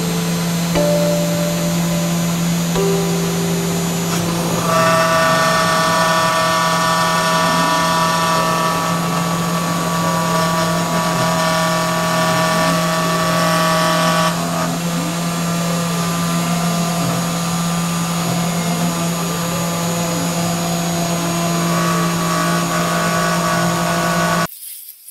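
3020 desktop CNC mill running: the spindle drones steadily while the stepper motors whine in tones that jump to new pitches and then sweep up and down as it engraves letters into fibreboard. The sound cuts off abruptly shortly before the end.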